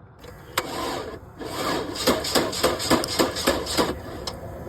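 Starter cranking a Chevrolet Cruze's four-cylinder engine in a rhythmic run of about three strokes a second, after a sharp click about half a second in, without the engine catching. The engine is being cranked to test for spark at cylinders 2 and 4, which then prove dead.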